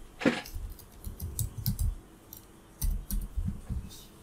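Typing on a computer keyboard: two short runs of keystrokes, with mouse clicks.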